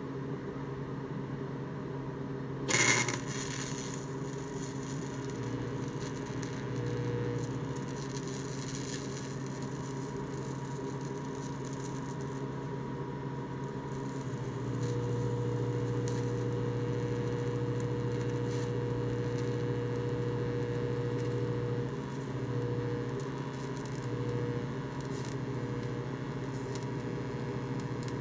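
Miller Econotig transformer TIG welder humming while TIG welding steel in DC negative, the hum swelling and easing as the foot pedal raises and lowers the current, with a short loud crackle about three seconds in. The machine is working normally in DC negative.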